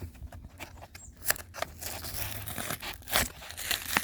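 Plastic-and-cardboard blister packaging of a Pokémon card three-pack being opened: crinkling and tearing with several sharp clicks and snaps.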